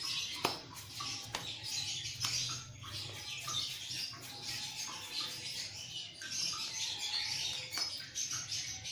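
Small birds chirping on and off in the background, over a faint steady low hum.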